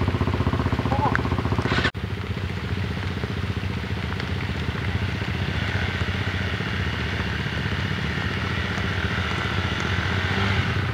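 Off-road trail motorcycle engine running steadily at low revs, broken by an abrupt cut about two seconds in.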